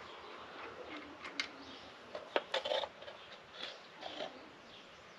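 Handling noises from working on hydraulic fittings on an excavator boom: scattered light clicks and rustles. The loudest is a sharp click, followed by a brief cluster of knocks a little past halfway.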